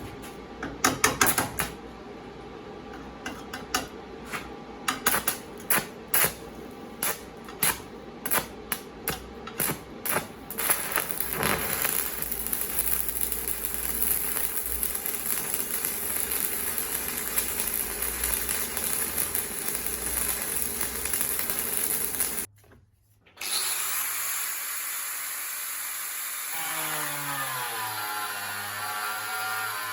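Workshop tool sounds: a run of separate sharp knocks and clicks, then a power tool running steadily. After an abrupt break, a motor runs on, its pitch wavering up and down near the end.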